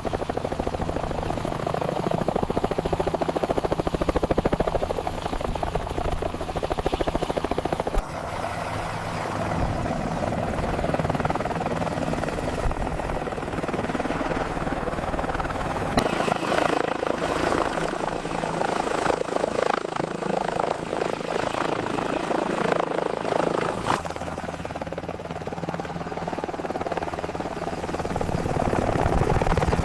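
Helicopter sound effects: the rapid chop of rotor blades over steady engine noise. The recording cuts abruptly to a different helicopter about every eight seconds.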